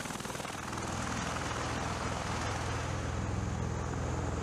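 MV-22 Osprey tiltrotor running with its rotors turning: a steady, fast rotor beat over a low engine hum, growing slightly louder about a second in.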